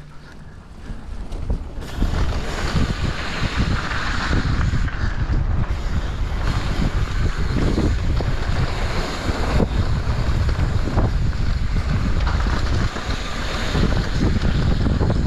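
Wind rushing over the microphone of a mountain biker riding down a trail. It builds up over the first two seconds, then holds steady.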